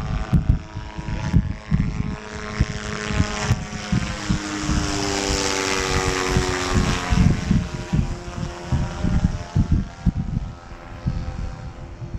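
A propeller plane flying over: its drone swells to a peak about midway and drops in pitch as it passes, then fades. Wind buffets the microphone throughout.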